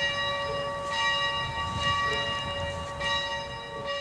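Steam locomotive bell ringing, struck about once a second so that its tones keep sounding, growing quieter near the end.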